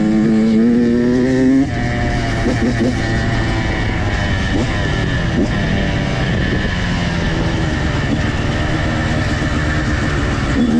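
Dirt bike engine revving up with rising pitch for the first second and a half, then dropping off abruptly and running on at lower, uneven revs.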